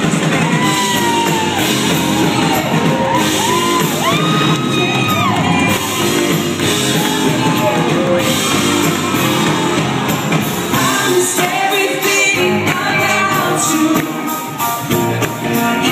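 Live pop band playing with a singer's long, arching vocal lines, heard from the audience in a large hall, with whoops and shouts from the crowd.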